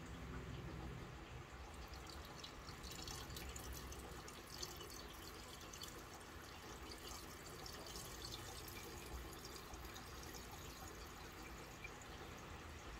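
Water poured from a plastic container into a glass fish bowl, landing on gravel and plants. The flow picks up about two to three seconds in and then runs on steadily.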